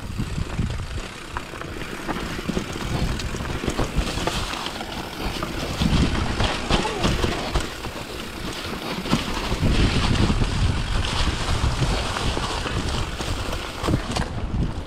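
Hardtail mountain bike descending a dirt trail: tyres rolling over dirt and leaves and the bike rattling over bumps, with wind buffeting the handlebar-mounted action camera's microphone. The low rumble swells about six seconds in and again around ten seconds.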